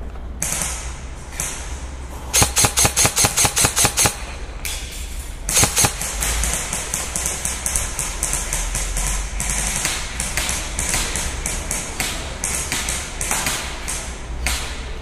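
An airsoft gun fired about ten times in quick succession, sharp even cracks at roughly five a second. Then running footsteps on a dusty concrete warehouse floor, irregular knocks and scuffs, over wind rumble on the head-mounted microphone.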